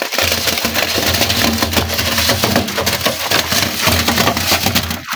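Wet concrete mix being scraped off a metal pan and poured into a steel culvert mould: a continuous gritty rasp of sand and gravel sliding over steel, over a low steady hum.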